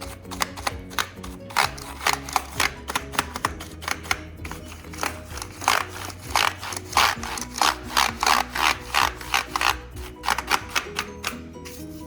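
Brush bristles scrubbing across and between computer keyboard keys in quick repeated strokes, about three a second, pausing briefly twice, over background music.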